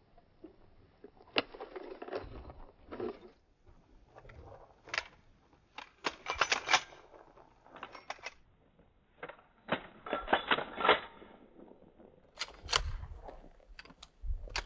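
Metallic clicks and clatter of several pistols being loaded and made ready, coming in scattered quick clusters.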